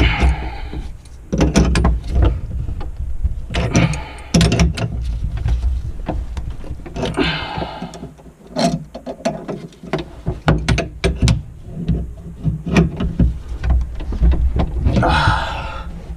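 Metal tools clinking, knocking and scraping on a compression shutoff valve and pipe as it is fitted and tightened, with short scraping bursts near the start, about four seconds in, about seven seconds in and near the end.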